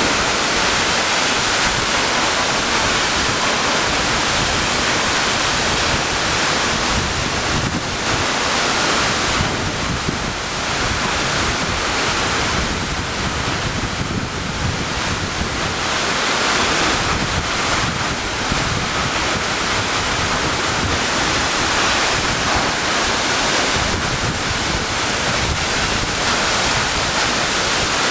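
Waterfall: the loud, steady rush of falling water, with wind buffeting the microphone.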